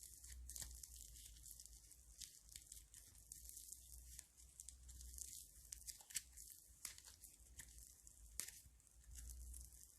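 Crunchy slime being worked by hand, giving a faint, irregular run of quick crackles and sharp little pops over a low hum.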